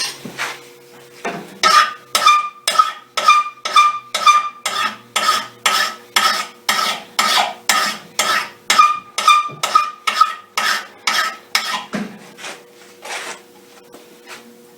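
Flat smooth file rasping back and forth across the freshly ground edge of a steel lawn mower blade clamped in a vise, about two strokes a second, many strokes carrying a ringing tone from the blade; the file is taking the burr off the sharpened edge.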